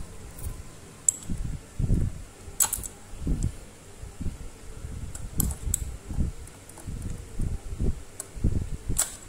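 Small metal clicks and scrapes of pliers and a thin pick working at the gear inside a hand drill's gear-head housing, a few sharper clicks standing out, over uneven low rumbling.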